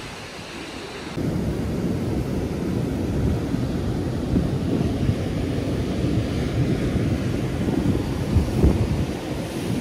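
Ocean surf breaking on a beach, with wind buffeting the microphone: a steady low rumbling noise that jumps up suddenly about a second in.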